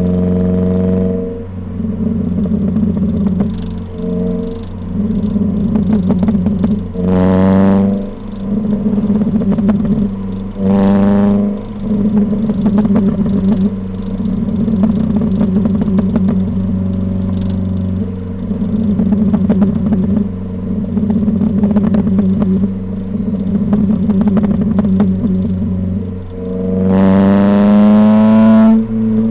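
Ford Fiesta ST150's 2.0-litre four-cylinder heard through its modified exhaust, running steadily under way. It rises sharply in pitch under acceleration twice in the first half, then once more, longer and loudest, near the end.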